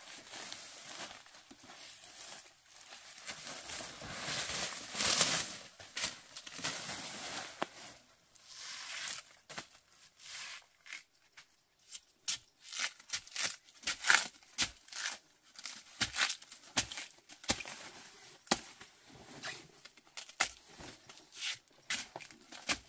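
Banana stalk sheaths being torn and peeled off to reach the core: tearing and rustling for the first half, loudest about five seconds in, then a run of quick, irregular sharp snaps and chops.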